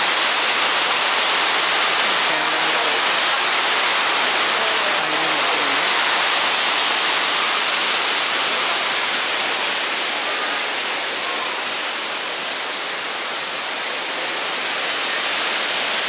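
Water pouring down from a large waterfall fountain, a steady rushing hiss that eases slightly about halfway through.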